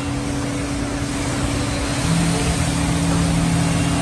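Changfeng CF SC4X4 CNC mortising and tenoning machine running, its row of spindle motors giving a steady hum over a constant hiss of machine noise. A lower steady tone joins about two seconds in.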